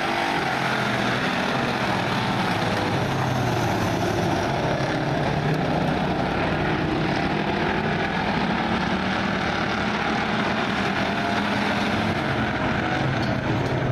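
A field of pure stock dirt-track race cars running at speed, their engines blending into a steady, continuous drone.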